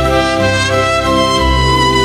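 Orchestral background music with brass, sustained notes changing every half second or so.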